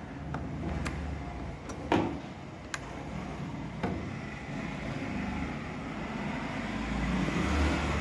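Samsung top-loading washing machine's motor running and turning the tub in one direction only, with a few clicks in the first four seconds, the loudest about two seconds in. Turning only one way is the sign of a failed spin triac on the control board.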